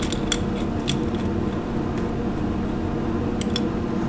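A steady low machine hum with a few light metallic clicks as an Allen key turns a bolt into a metal adapter plate.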